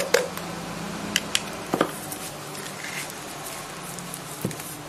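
Wet sand-and-cement mortar being pressed and worked by hand into the bottom of a cement vase to patch its missing base: soft squishing and handling, with a few light clicks and knocks.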